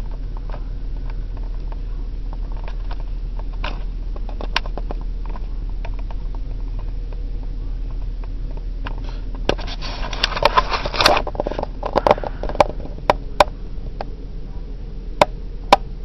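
Handling noise from a handheld camera being moved around a head of locs, over a steady low electrical hum. About ten seconds in there is a burst of rustling and scraping on the microphone, then a few sharp clicks.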